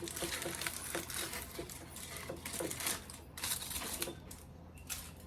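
Kitchen items being handled: an irregular run of light clicks and taps with some rustling.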